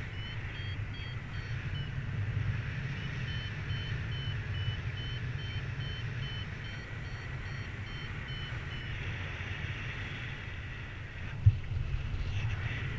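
Paragliding variometer beeping in short, evenly spaced tones, the sign that the glider is climbing in lift, over a steady rumble of wind on the camera microphone. The beeping stops about nine seconds in, and a single sharp knock comes near the end.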